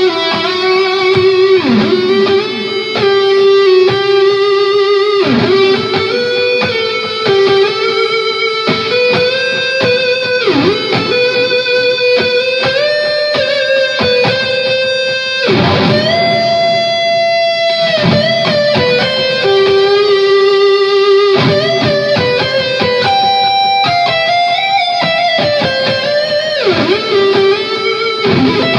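Ibanez US Custom UCGR5 electric guitar played through a Mesa amplifier, a melodic lead line of long held notes with vibrato, bends and slides between pitches.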